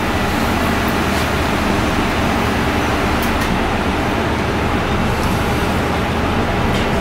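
Steady loud background noise, a low rumble with hiss, unchanging throughout, with a few faint clicks.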